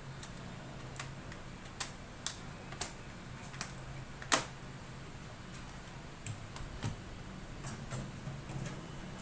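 Irregular sharp clicks and taps from handling a laptop, about a dozen spread unevenly, the loudest about four seconds in, over a low steady hum.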